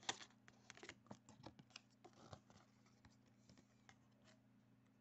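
Faint clicks and scrapes of hands handling a Pokémon trading card, most of them in the first three seconds, over a faint steady low hum.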